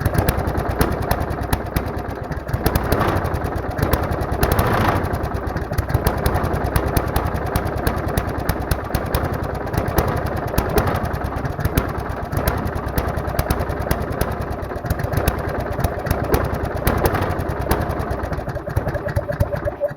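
Briggs & Stratton 190 single-cylinder lawnmower engine running steadily at speed, with a brief rise in level about five seconds in, while a makeshift throttle linkage is being tried out.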